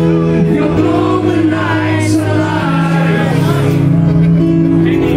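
Hard rock band playing live and loud, with singing over sustained chords and drums.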